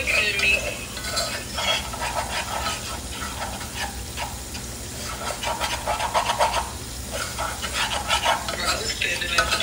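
A utensil stirring rice in a metal saucepan, scraping and clicking against the pot in quick irregular strokes, over a steady sizzle from the stove.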